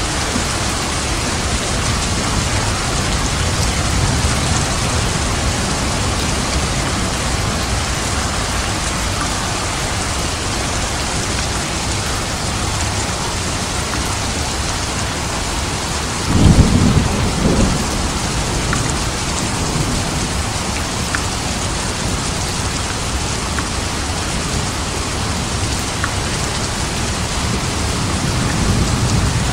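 Steady rain falling at night, an even hiss. About halfway through there is a brief, loud low rumble.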